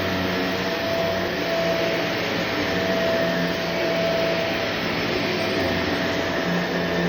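Vacuum cleaner running steadily, a rush of air with a steady motor whine and hum.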